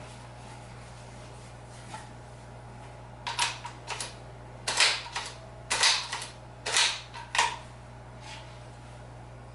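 Four short clusters of sharp clicks and knocks over a steady low hum.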